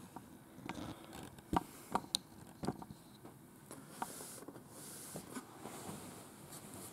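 Handling noise from the camera being set in place: a few sharp knocks and taps in the first three seconds, then soft rustling and shuffling.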